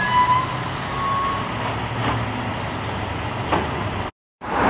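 A vehicle engine idling steadily, with two short high tones in the first second and a half and a couple of light clicks. The sound cuts off abruptly about four seconds in.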